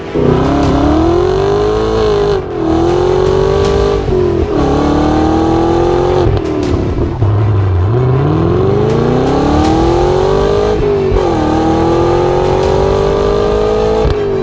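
2017 Chevrolet Camaro SS 1LE's V8 through a Stainless Works cat-back exhaust, accelerating hard. The exhaust note climbs in pitch and drops back several times, as with upshifts.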